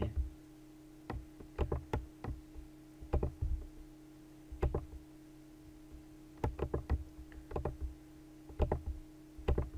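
Computer mouse clicking: small groups of sharp clicks every second or so, separated by quiet gaps, over a faint steady hum.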